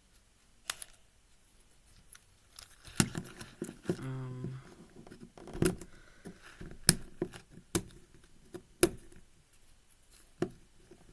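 Scattered sharp clicks and scratchy rustling of fingernails and tape on a plastic 5x5 speed cube as stuck tape is picked and peeled off it.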